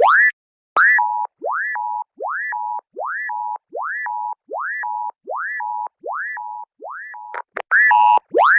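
Electronic emergency-alert alarm tone repeating about every 0.8 s: a rising whoop followed by a short steady two-note beep. Near the end a louder, harsher burst breaks into the pattern.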